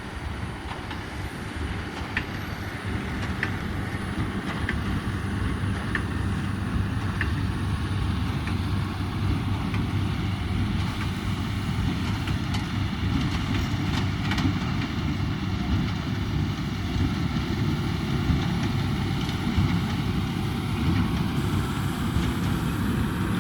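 Tractor engine running steadily under load with a Krone Combipack baler-wrapper working behind it. It grows louder over the first several seconds and then holds level, with a few faint ticks early on.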